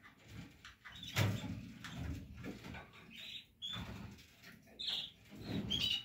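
Newly hatched canary chick giving a handful of short, high begging squeaks, over rustling and bumping as the fibre nest is handled.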